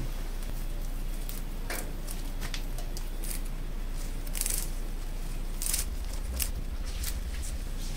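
Leaves and twigs of a bushy bonsai rustling and crackling in a few short bursts as hands work through its branches, over a steady low background hum.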